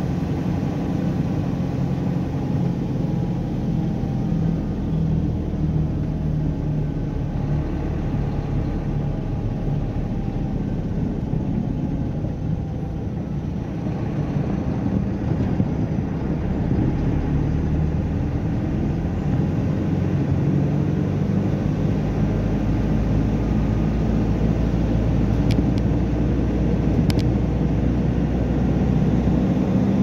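Truck's diesel engine running on the move, heard from inside the cab: a steady drone whose engine tones shift up and down in pitch as the revs change, with a deeper rumble setting in about two-thirds of the way through. Two brief clicks near the end.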